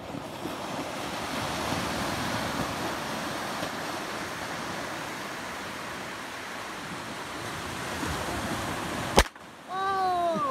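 Firework burning with a steady rushing hiss, then one sharp, loud bang near the end as it explodes and throws debris.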